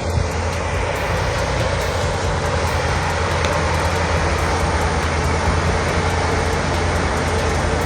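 Heavy earthmoving machine's diesel engine running steadily, with a deep, constant rumble.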